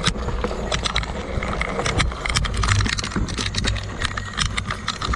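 Fat-tire mountain bike riding over a rough dirt trail: irregular rattling and knocking of the bike and its camera mount over bumps, over a steady low rumble of the knobby tyre rolling on dirt.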